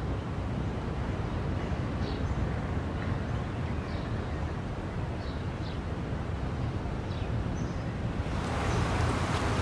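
Outdoor roadside ambience: a steady low hum of traffic with occasional short, high bird chirps. The background noise gets louder and brighter about eight seconds in.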